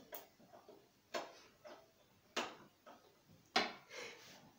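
Sharp clicks and knocks from a screwdriver working the lower fixing of a flat-screen TV's wall bracket: three distinct knocks about a second apart, the last loudest.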